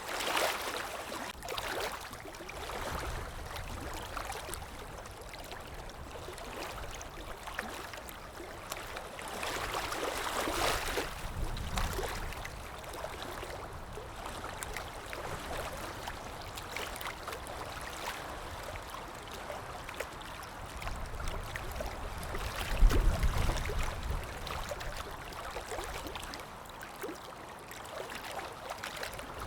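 Running water flowing steadily, with a brief low rumble a little over two-thirds of the way through.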